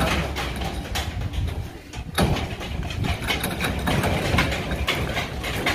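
Engine idling with a steady low hum, mixed with knocks and rattles as a sheet-metal food cart on two wheels is pushed over rough ground.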